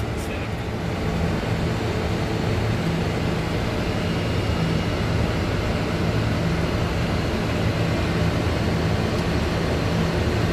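Steady flight-deck noise of a Boeing 747-400 in flight: an even rush of air with a low, constant hum underneath.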